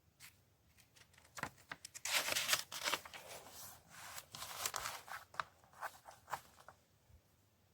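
Handling noises: a run of sharp clicks with crinkling, tearing rustles, loudest about two seconds in and again near the middle, dying away about a second before the end.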